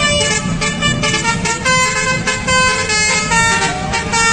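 A custom-decorated light cargo truck's multi-tone musical horn plays a quick run of changing notes over the truck's engine and road rumble as it drives past.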